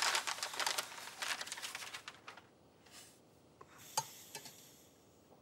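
Paper rustling and crinkling as a letter is handled. About four seconds in comes a clink of a metal cup and a brief pour of liquid from a ewer.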